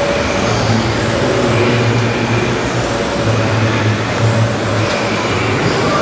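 Radio-controlled scale model tipper semi-truck driving over a dirt track, its motor running with a hum that comes and goes and faint rising whines, over a steady background din.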